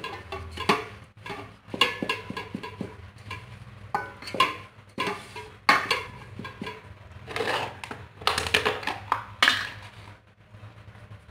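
Wooden spatula stirring and scooping cooked rice in a rice cooker pot: irregular scrapes and knocks of the spatula against the pot, some with a short ring.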